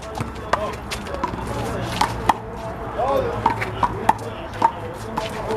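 Rubber handball being struck by hand and rebounding off the wall and court during a rally: a string of sharp, irregularly spaced smacks.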